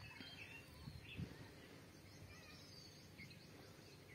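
Near silence, with faint short bird chirps in the background.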